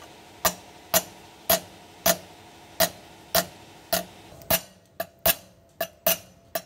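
Hammer striking a used wheel-bearing cup held over a truck's metal axle hub cap, driving the cap onto the hub: a steady run of metallic taps, about two a second, coming faster in the last couple of seconds. The old bearing cup spreads the blows so the cap goes on tight without denting.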